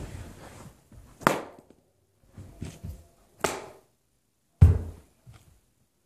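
Scattered knocks and thumps as a person shifts about on hands and knees on a carpeted floor: a sharp knock about a second in, a few softer ones, another sharp knock, then the loudest, dull thump near the end.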